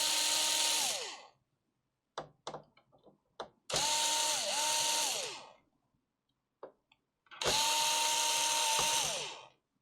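Small electric screwdriver run in three short bursts, each spinning up to a steady whine and winding down again, with light clicks between the bursts.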